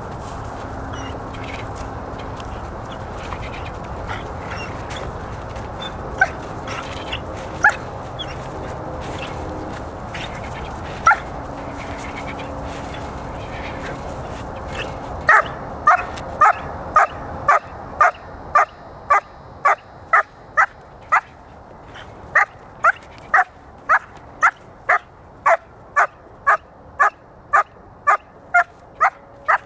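Six-month-old puppy barking at a bite roll in protection training: a few single barks at first, then a steady run of short, sharp barks, about two a second, for the second half.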